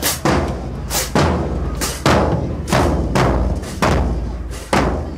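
Marching band drumline playing a marching cadence: loud, sharp drum strikes a little under two a second over a deep bass drum.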